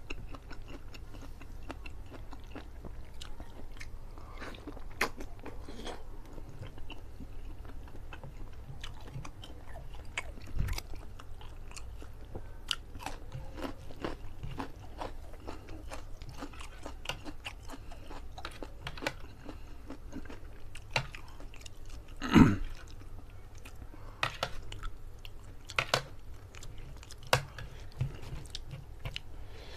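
Close-miked chewing and mouth sounds of a man eating curry chicken and rice by hand, made up of many short clicks over a steady low hum. There is one louder thump about two-thirds of the way through.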